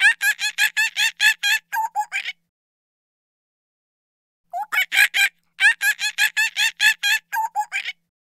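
Monkey chattering: quick runs of short, high, pitched calls, about five a second, in two bouts with a silent gap of about two seconds between them.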